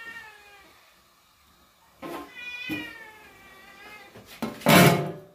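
A domestic cat meowing: one call at the start and a longer call with falling pitch a couple of seconds in. Near the end, a short loud clatter as an aluminium lid is set onto the cooking pot.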